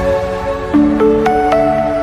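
Background music: soft electronic music with held, layered notes changing every half second or so.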